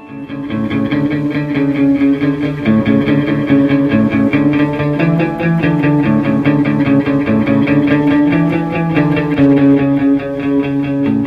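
Outro music: a rock track with electric guitar, bass and a fast, steady strummed or picked beat. It swells up about half a second in.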